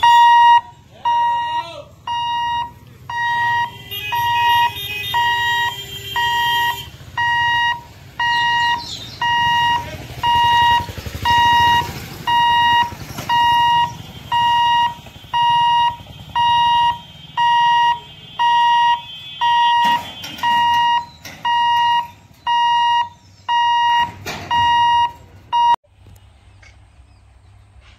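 Railway level-crossing warning alarm beeping about once a second, each beep a steady high electronic tone, sounding while the crossing's boom barrier is worked to close the road for a train. The beeping stops suddenly near the end.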